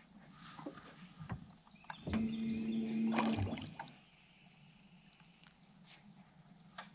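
Electric trolling motor on a small boat running briefly, a steady low hum lasting about a second, starting a little after two seconds in. A few light knocks come before it, and a faint steady high-pitched buzz runs underneath.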